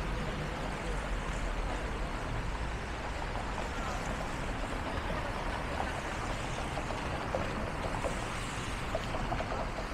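Steady hiss of rain and wet city street traffic, with a low rumble underneath.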